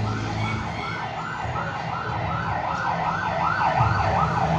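Emergency-vehicle siren in fast yelp mode, sweeping up and down about three times a second and growing louder toward the end, over a steady low hum.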